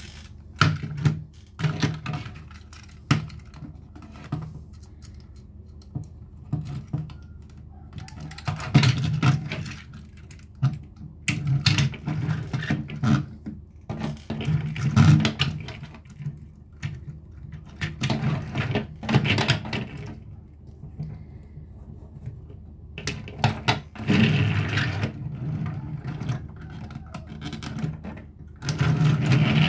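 Toy trains and their pieces clicking and clattering as they are handled, in irregular bursts of rattling with short pauses between.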